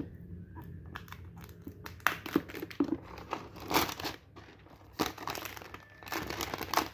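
Plastic wrap on a smartphone box being cut and peeled off by hand, crinkling and tearing in irregular bursts that grow denser toward the end.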